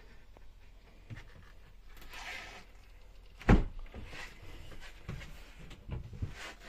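Knocks and thumps of someone moving about a small wooden boat cabin: one heavy thump about halfway through, a few lighter knocks near the end, and light rustling between.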